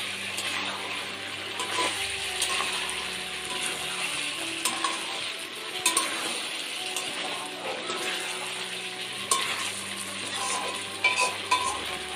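Chicken curry with potatoes, pumpkin and whole garlic sizzling in a kadai while a spatula stirs and scrapes it, with short clicks of the spatula against the pan that come more often near the end.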